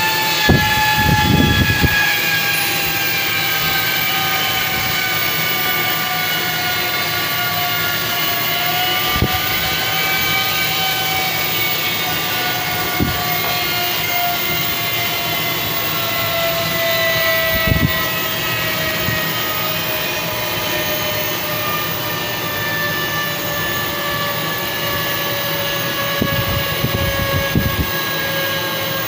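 Small high-speed 12 V DC cooling fan running on the bench after repair, giving a loud whine whose pitch sinks slowly and steadily. A few light knocks come from the fan being handled.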